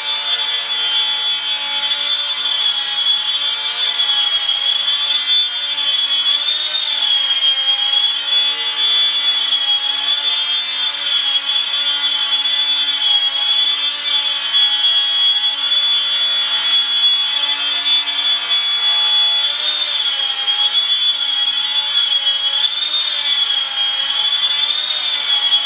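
Small electric RC helicopter in flight: brushless motor and four-blade rotor giving a steady high whine over a hiss. The whine wavers slightly in pitch now and then as the throttle and rotor load change during manoeuvring.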